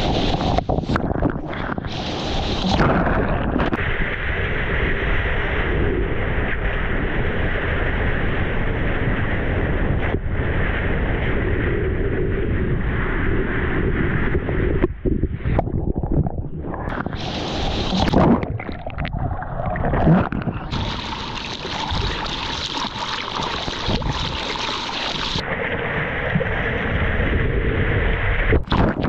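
Rushing whitewater and breaking surf heard close up on a surfer's action camera while riding a wave, with wind buffeting the microphone. The sound changes abruptly several times where the clips cut.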